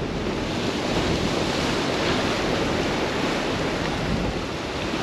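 Ocean surf washing against a rocky shoreline: a steady, even rush of breaking waves.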